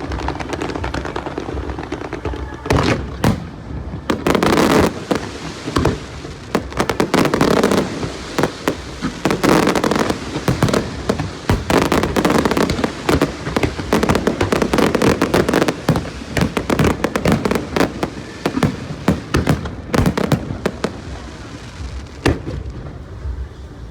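Aerial fireworks bursting in rapid, dense succession: repeated sharp bangs mixed with crackling.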